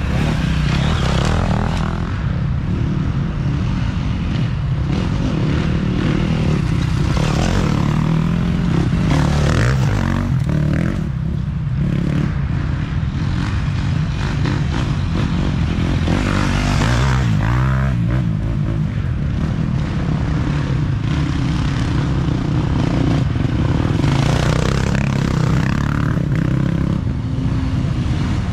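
Off-road dirt bike engines revving hard, swelling and fading several times as riders come past one after another, over the steady drone of other bikes on the course.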